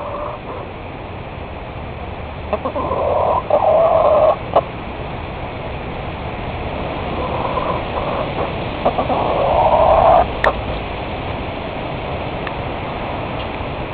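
Steady heavy rain falling, with chickens calling in two bursts of a second or two each, a few seconds apart.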